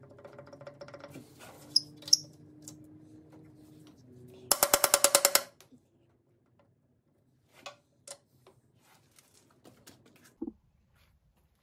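Power impact wrench on the bolts of a small crawler dozer's rear housing: a steady motor whir, then a rapid run of metallic hammering lasting about a second, a little over four seconds in. A few faint knocks follow.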